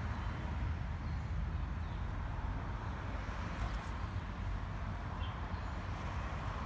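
Steady outdoor background noise: a low rumble under a soft hiss, with a couple of faint, short high sounds in the middle.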